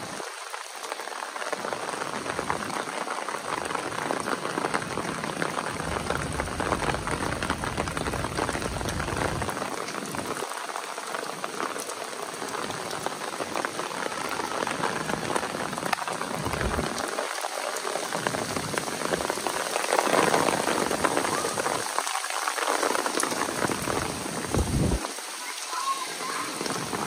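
Heavy downpour: a dense, steady hiss of rain with countless close drop impacts, and a low rumble that swells and fades every few seconds.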